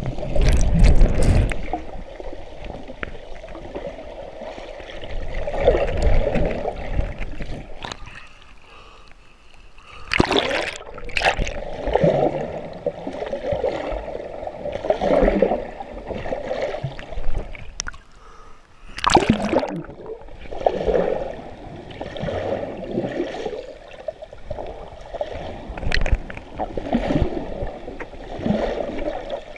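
Muffled water sloshing and gurgling around a camera held underwater, swelling and fading every few seconds, with sharper splashes near the start and about ten and nineteen seconds in.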